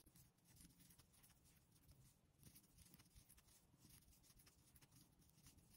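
Near silence, with only a few faint soft ticks.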